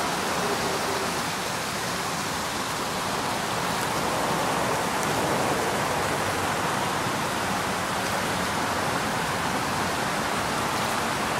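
Shallow creek running over stones, a steady rushing of water.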